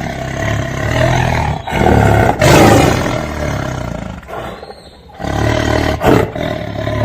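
Tiger roaring: several long, deep roars one after another, with a short lull a little past halfway.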